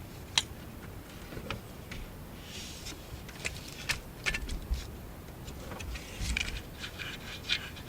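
Irregular light metallic clicks and clinks of hand tools and parts as an alternator is worked onto its mounting stud, with a short scrape about two and a half seconds in and a quicker run of clicks near the end.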